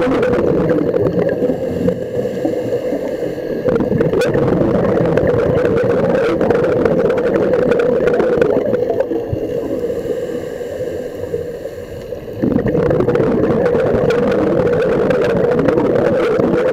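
Muffled underwater sound: a steady low drone with water gurgling, dipping slightly then jumping back up in level about twelve and a half seconds in.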